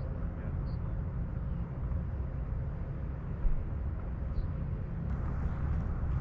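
Wind rumbling on the microphone, a steady low buffeting, with a few faint high chirps.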